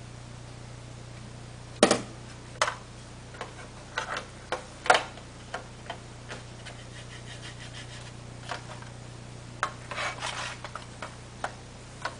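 A hard plastic phone case being handled against a phone: irregular sharp clicks and taps, loudest about two seconds in and again near five seconds, with a quick cluster of clicks near the end, over a steady low hum.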